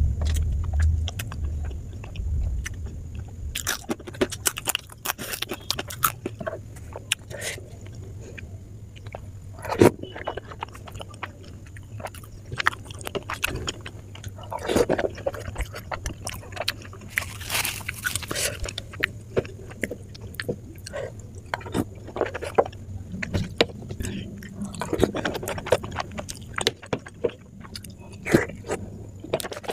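Someone eating soft, syrupy Indian milk sweets such as rasmalai: wet chewing and mouth clicks, with a metal spoon tapping and scraping against a plate.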